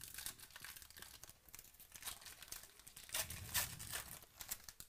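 Foil wrapper of a 2018 Prizm football card pack being torn open and crinkled by hand: a run of crackling rustles, loudest a little past the middle.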